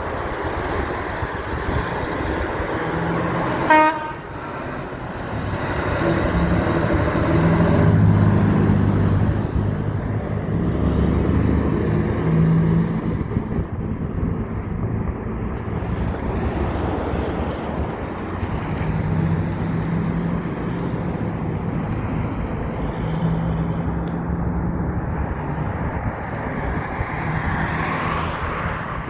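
Heavy trucks running past with a steady low engine drone that swells for a few seconds in the first half. About four seconds in, a horn gives one short toot, the loudest sound.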